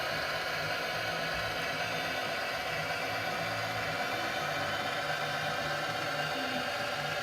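HO-scale model diesel locomotive with onboard sound, its small speaker playing a steady diesel engine sound over the whir of its motor and gears.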